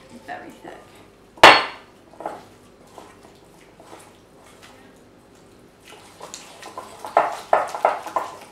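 Glass mixing bowl and kitchenware knocking: one loud, sharp knock about a second and a half in, then a run of smaller knocks and clinks near the end as hands mix wet compost, clay and seeds in the bowl.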